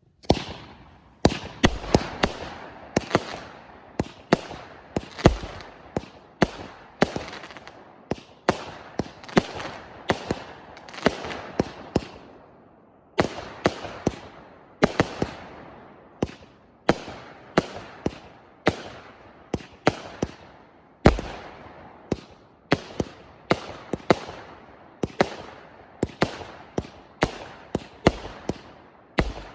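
A 100-shot firework cake with 0.8 to 1.2 inch tubes firing in sequence: sharp shots about one and a half a second, each trailing a fading hiss. The shots begin abruptly at the start.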